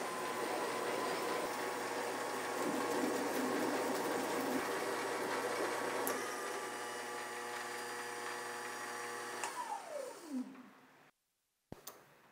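Benchtop lathe running with a steady motor whine. About nine and a half seconds in it is switched off, and the whine falls in pitch as the spindle spins down. A click comes near the end.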